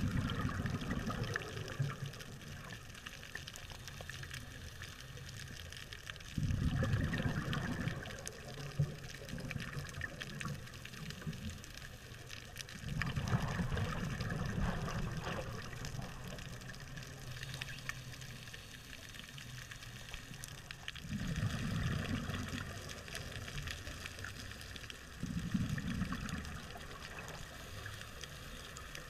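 Scuba diver breathing through a regulator underwater: exhaled bubbles rumble out in five bursts several seconds apart, with a faint steady hiss between.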